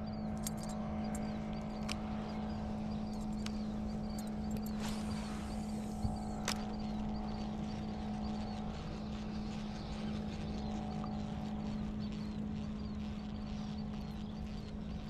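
Bow-mounted electric trolling motor running with a steady hum. About five seconds in, a cast is made: line hisses off the reel for about a second and a half, then a sharp click as the reel is engaged.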